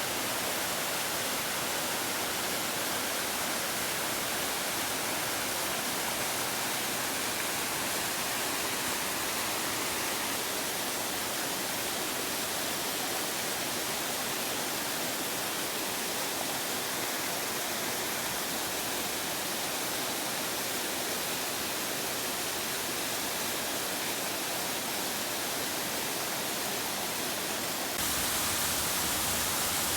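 Steady rush of a small waterfall, a constant even hiss of falling water. Near the end it abruptly becomes louder and brighter.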